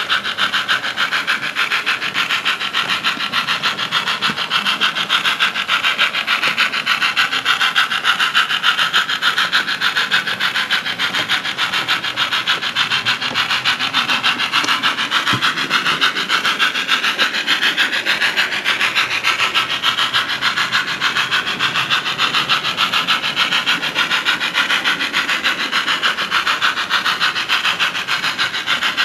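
On30 model Forney steam locomotive running on the layout track, giving a steady, fast, even rhythmic pulsing.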